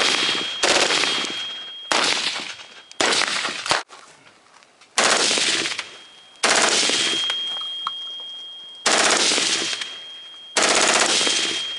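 Suppressed full-auto fire from an M16 with an LWRC M6A2 10.5-inch upper and an AAC 762-SDN-6 suppressor, fed from a 100-round Beta drum. It comes as a string of rapid bursts of one to two seconds each, nearly back to back, with a pause of about a second near the middle.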